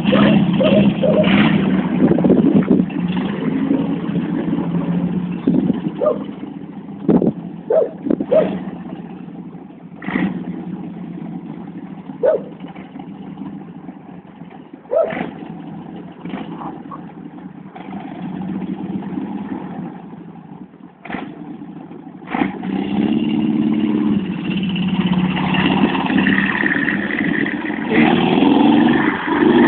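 Homemade trike's engine running as the trike pulls away, fading to a lower level through the middle, then growing louder again from about two-thirds of the way in as it comes back along the street. A few sharp knocks stand out while it is quieter.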